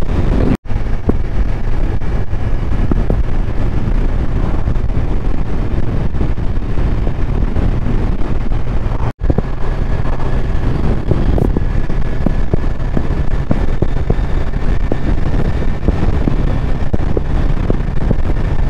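Motorcycle riding at road speed: heavy wind noise on the microphone over the engine's steady drone. The sound cuts out for an instant twice, under a second in and about nine seconds in.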